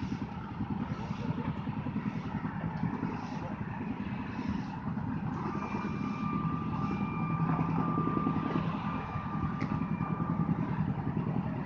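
Street traffic: a heavy vehicle engine running with a steady, rapidly pulsing rumble. A thin, steady high whine joins about halfway through.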